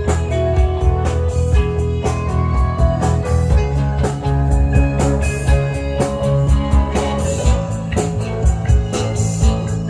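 Rock-style band music: guitar playing over bass and a steady drum beat.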